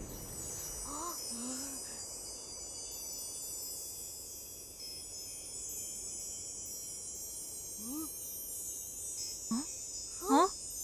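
A high, shimmering wind-chime-like sound effect, many bright tones ringing together steadily. Short rising vocal exclamations from a cartoon child come a few times, the last one near the end.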